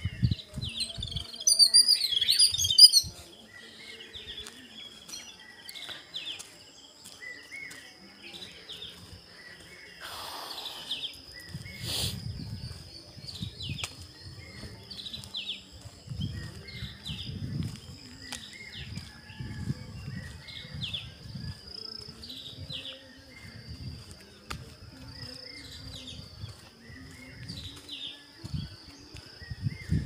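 Small birds chirping and calling, with a loud flurry of high calls about two seconds in, then short falling chirps repeating roughly once a second over a faint steady high tone. Low thuds of walking and handling the phone come in from the middle on.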